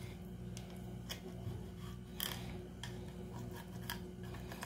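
Faint, scattered scrapes and clicks of a knife sliding along a traíra's rib bones as the flesh is freed from them, the strongest about two seconds in, over a steady low hum.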